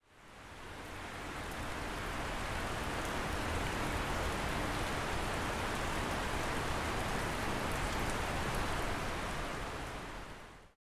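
Steady, even hiss of ambient noise, like rain, fading in over the first couple of seconds and fading out near the end.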